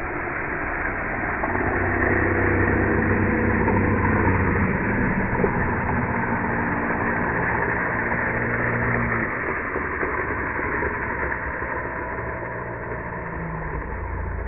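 Longboard wheels rolling and sliding on asphalt, a steady rushing rumble, with wind on the moving microphone. A low hum runs under it for the first two-thirds, then eases off.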